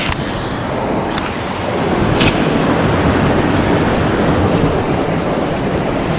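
Creek water rushing over rocks in a steady loud wash, with a few light clicks in the first couple of seconds.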